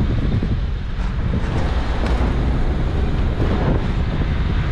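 Holden Adventra AWD wagon climbing a steep loose-rock track, heard from an outside-mounted microphone. Wind buffets the microphone over a steady low rumble of engine and tyres crunching on gravel.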